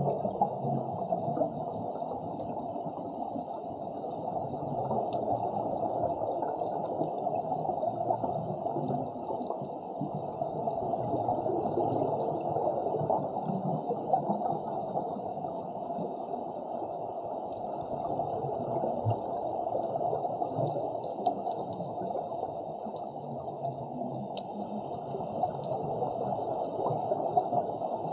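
Underwater ambience around a scuba diver: a steady, muffled rush with gurgling exhaust bubbles from a scuba regulator.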